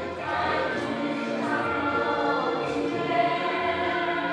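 A group of men and women singing a song together in chorus, their voices holding long notes that move from pitch to pitch.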